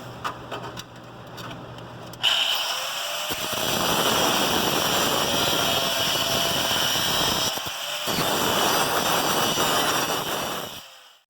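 Angle grinder with a cut-off wheel cutting through the old bolts of a snowblower's worn-out wear edge: a loud, steady, high-pitched grinding hiss that starts about two seconds in, eases briefly near eight seconds and stops near the end. Light clicks and rattles come before it starts.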